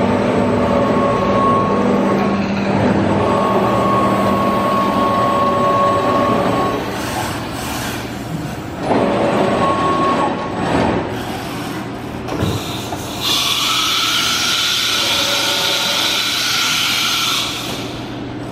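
2008 Thermwood CS-45 CNC router running a program with no workpiece on the table: the spindle turns at 12,000 rpm with a steady whine while the gantry drives move, their hum shifting as moves start and stop. A loud hiss starts about thirteen seconds in and stops about four seconds later.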